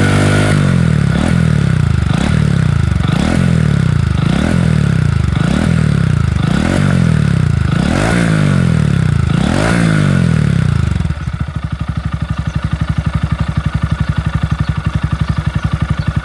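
Honda Grom (2021-on) 124 cc single-cylinder engine through a BEAMS R-EVO titanium full exhaust, blipped about eight times in quick succession, each rev rising sharply and falling back. About eleven seconds in it drops to a steady, lumpy idle.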